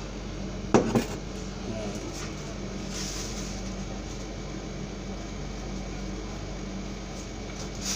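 Steady hum of a room air conditioner, broken by two sharp knocks about a second in and a brief hiss around three seconds in.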